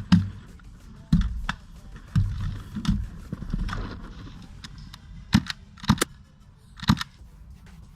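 Rustling and low thumps of movement, then sharp clacks near the end: two close together, then one more about a second later.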